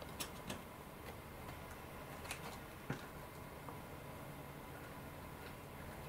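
A few faint, sharp clicks and taps from small model parts being handled during pushrod and servo fitting, over quiet room tone.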